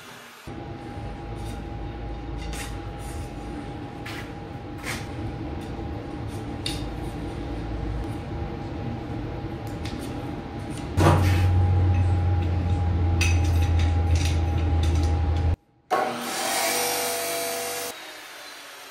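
Steel stock being worked with shop power tools: a steady mechanical running sound with rubbing and scraping. It turns louder and deeper about eleven seconds in, stops abruptly a few seconds later, and a shorter tool sound follows.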